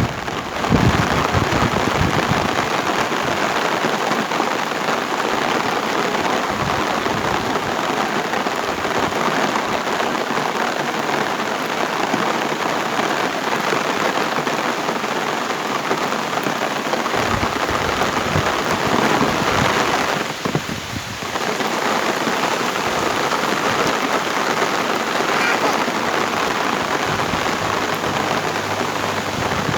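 Heavy rain pouring steadily, a dense hiss of drops hitting surfaces, with brief low rumbles about a second in and again around seventeen seconds in.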